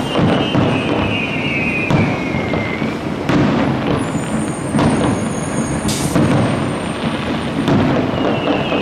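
Fireworks display: aerial shells bursting in repeated booms, about one every one to two seconds, over a continuous rumble. A high falling whine runs through the first few seconds and comes again near the end.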